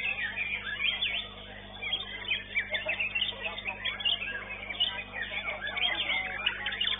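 White-rumped shama (murai batu) singing in its contest cage: a rapid, varied stream of chirps, trills and short whistles, with a brief pause about two seconds in.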